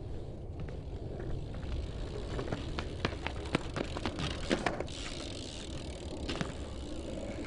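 BMX bike rolling on pavement with a steady low tyre rumble, and a run of sharp clicks and rattles from the bike about halfway through.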